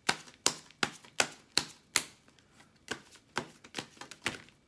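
A deck of tarot cards being shuffled by hand: a run of about ten sharp card slaps, roughly two or three a second, with a short break about halfway through.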